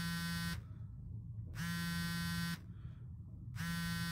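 Mobile phone vibrating for an incoming call that goes unanswered: a buzz about a second long, repeating every two seconds. Three buzzes, the first already going and the last starting near the end.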